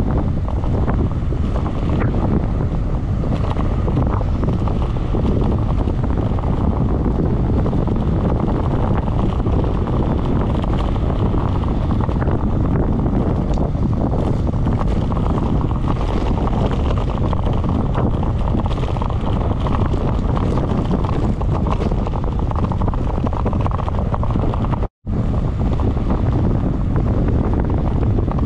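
Wind buffeting the microphone of a handlebar-mounted action camera on a moving bicycle: a steady, deep rumble of wind noise that drops out for an instant about 25 seconds in.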